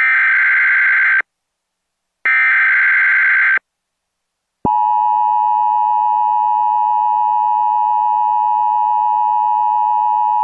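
Emergency Alert System SAME header: two bursts of harsh digital data tones, each about a second and a quarter long with a gap of about a second between them. About halfway through, a steady, continuous EAS attention tone starts, which signals that an alert message is about to be read.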